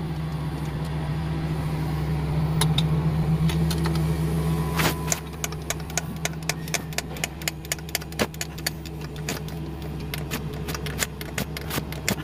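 Steady low engine hum. From about five seconds in it is overlaid by a run of quick, light metallic clicks, several a second, as hands and tools work among the injection pump's fittings.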